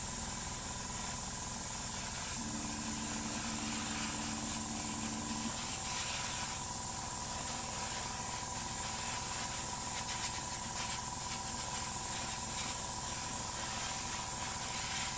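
Airbrush hissing steadily as it sprays, over the steady hum of a small piston airbrush compressor running.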